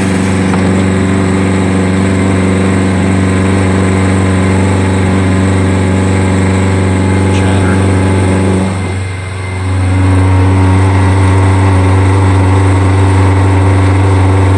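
CNC milling machine cutting with a nearly worn-out high-speed-steel end mill, making a loud steady hum with chatter and vibration from thin stock sticking up out of the vise. The cut eases off briefly about nine seconds in, then resumes at full loudness.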